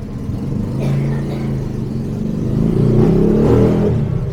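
A motor vehicle's engine running close by, swelling and rising in pitch to its loudest about three to four seconds in, then easing off.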